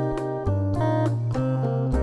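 Background music: a plucked string instrument playing a melody over changing bass notes.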